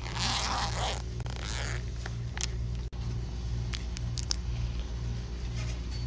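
A clear plastic makeup pouch is unzipped and rummaged, a scratchy rustling in the first couple of seconds. It is followed by a few light clicks as the makeup is handled. A steady low hum that pulses about twice a second runs underneath.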